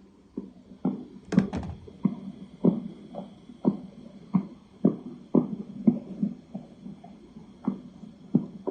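Dull banging thumps like someone stamping about, roughly two a second at an uneven pace, with two sharper knocks close together about a second and a half in. The source is unexplained and heard through the room.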